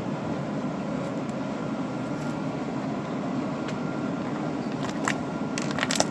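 Steady low hum of room noise, with a few short sharp clicks near the end.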